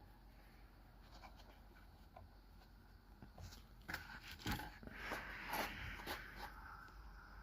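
Faint scraping and rubbing with scattered light clicks from hand work on a semi truck's inner door panel, sparse at first and louder and busier from about four seconds in.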